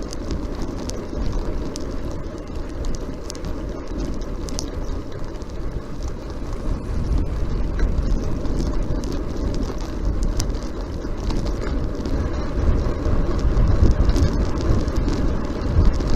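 Wind rushing over the microphone and road noise of a bicycle riding at speed, a steady low rumble with a hiss, with scattered small clicks.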